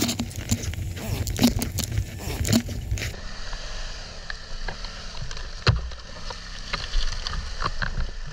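Motorcycle ridden over a rough trail: a low rumble of engine and wind under a string of sharp knocks, rattles and scrapes.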